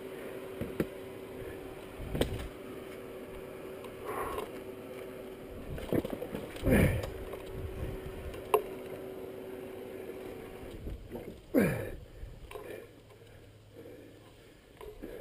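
Kawasaki KLR650 single-cylinder dual-sport motorcycle working through a muddy rut: a steady engine note with a few short loud surges that drop in pitch, along with knocks and thumps. The steady note stops about two-thirds of the way through.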